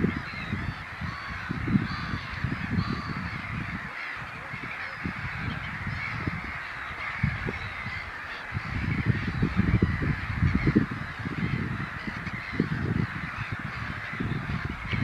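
A steady chorus of many waterbird calls, honking goose-like calls among them, with gusts of wind rumbling on the microphone that come and go.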